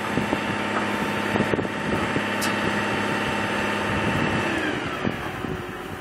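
Rooftop package air-conditioning unit running with a steady mechanical hum, its tones sliding down and fading from about four and a half seconds in as it winds down.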